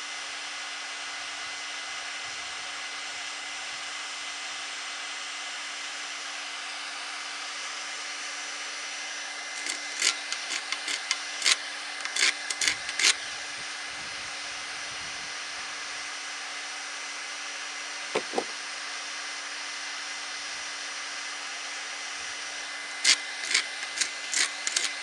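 Worcraft WHG-22-60 2200 W industrial heat gun running steadily, blowing hot air with a constant hum. About ten seconds in, and again near the end, comes a quick run of sharp scraping clicks as softened paint is scraped off metal.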